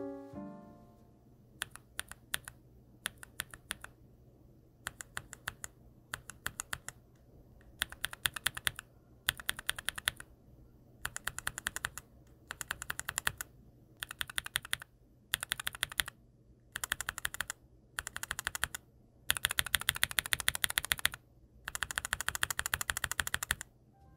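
Stock, unlubed HUANO White Blue SE tactile mechanical keyboard switch pressed repeatedly by a finger in an acrylic switch tester, clacking as it bottoms out and returns. The presses come in rapid bursts of a second or two with short pauses between, after a few scattered presses at first.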